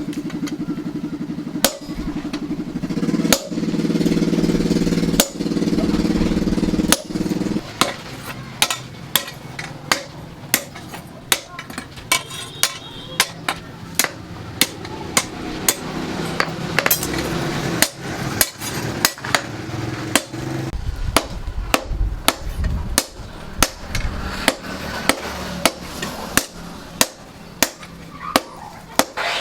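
Hand hammer striking steel on an anvil in a steady rhythm of about two blows a second, forging the chainsaw-bar steel. A motor hums under the first few blows and stops about seven seconds in.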